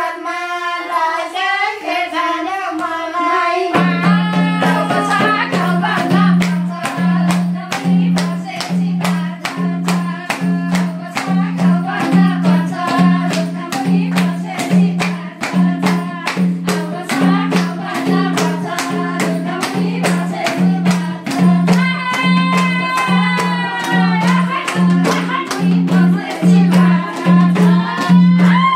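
A song with a high voice singing; about four seconds in, a steady beat and a repeating bass line come in under the melody.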